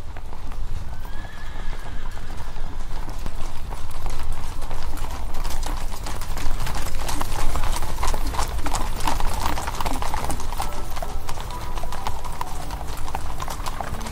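Horse hooves clip-clopping on hard ground, the strokes coming thicker from about five seconds in, with a short whinny about a second in.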